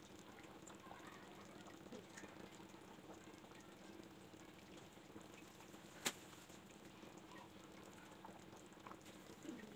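Paya broth simmering in a clay pot on low flame: faint bubbling with scattered small pops, and one sharp click about six seconds in.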